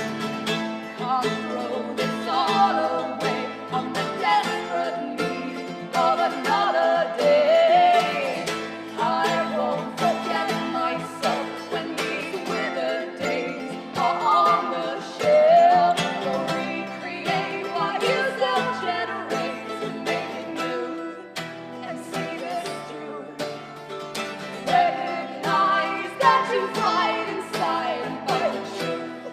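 Live acoustic folk-pop music: plucked acoustic guitars playing an instrumental passage under a bending lead melody line, with no lyrics sung.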